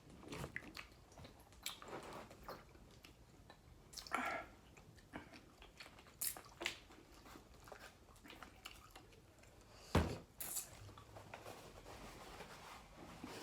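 Close-up eating sounds of seafood: biting and chewing with scattered small crunches and clicks, and one sharp knock about ten seconds in.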